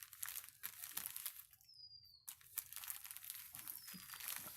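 Packaging of a delivered parcel crinkling and tearing in irregular crackles as it is pulled open by hand.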